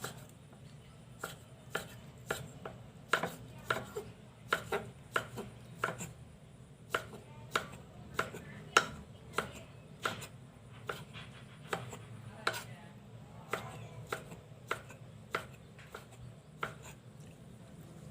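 A knife chopping on a cutting board: sharp, separate strokes at an uneven pace, roughly one or two a second.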